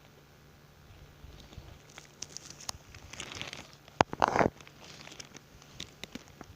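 Rustling and crackling noises that grow busier after about a second, with a sharp click about four seconds in followed by a short, louder burst of rustling.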